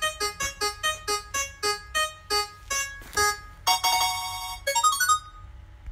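Prize-wheel spinning sound effect: bright, keyboard-like plinking notes that slow from about seven a second to about three, like a wheel coming to rest. About four seconds in a brighter chime chord and a short flourish of notes sound as it lands. The sound cuts off suddenly at the end.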